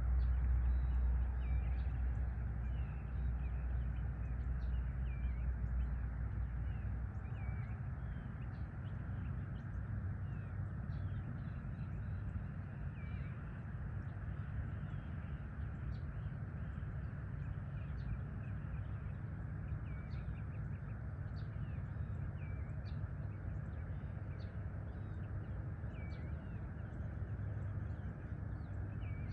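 Birds chirping and calling over and over in short notes, the dawn chorus of a sunrise, over a steady low rumble that eases after the first several seconds.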